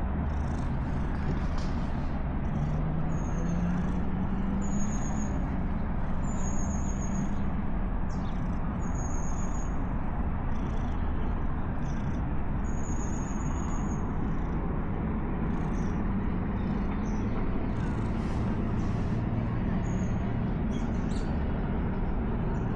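Steady city road traffic noise, a continuous low rumble, with short high-pitched chirps every second or two.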